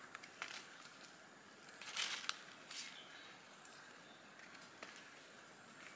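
Faint rustling and crackling of dry leaf litter and twigs, a few short bursts with the strongest cluster about two seconds in.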